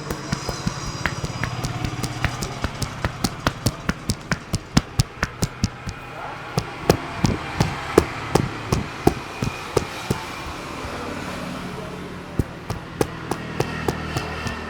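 A street barber's hands striking a customer's head in quick, even slaps during a head massage, about four sharp smacks a second, over a steady low hum of street background.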